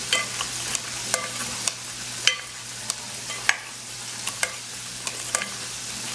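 A plastic spoon stirring buffalo-sauced chicken wings in a glass bowl: wet sloshing, with the spoon knocking against the glass about a dozen times at irregular intervals, each knock ringing briefly, over a steady hiss.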